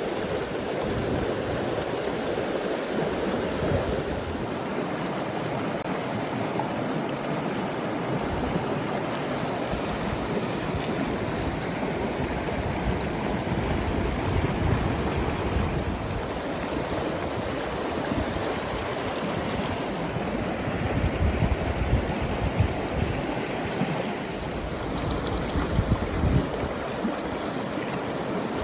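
River water flowing in a steady, even rush, with a few low rumbling bumps in the last third.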